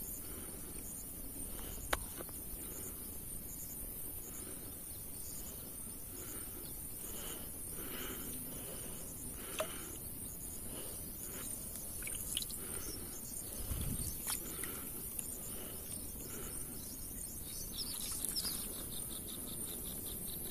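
Insects buzzing steadily at a high pitch, with short chirps repeating about once or twice a second and a few brief clicks.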